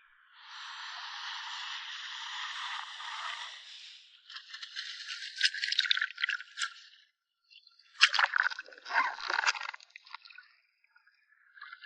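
Water sounds: a rush of hissing water, then clicking, rattling and splashing in two bouts.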